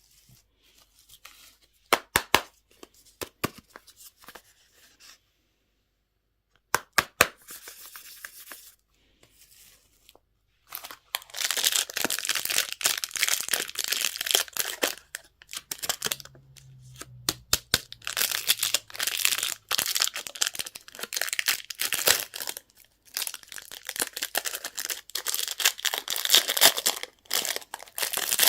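Plastic candy wrapping being torn open and crinkled by hand. A few sharp clicks and short rustles come first, then from about a third of the way in, dense, continuous crinkling and tearing.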